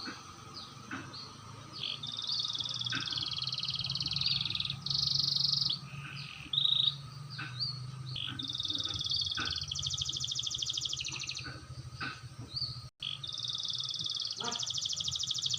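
Canary singing, a young bird practising its rolls: long, high trills of rapidly repeated notes strung between short chirps and sweeps, with brief pauses between phrases.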